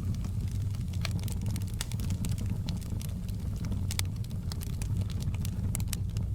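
Fire in a fireplace crackling, with irregular sharp pops and snaps over a steady low rumble of the flames.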